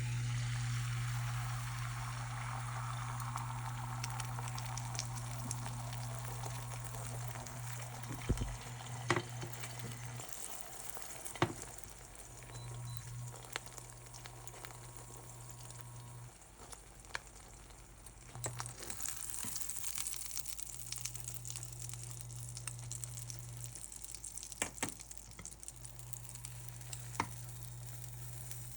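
Food sizzling in a hot frying pan, loudest at the start and then settling to a steadier sizzle, with a few sharp clicks. A low hum cuts in and out.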